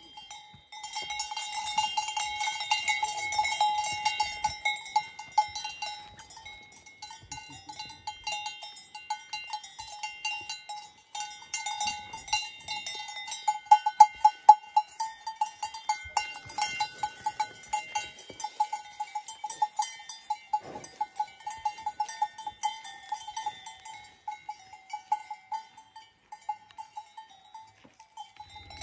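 Cowbells on grazing cows' collars clanking and ringing irregularly as the cows move, with one steady bell note sounding throughout. Loudest about halfway through, as a belled cow walks close by.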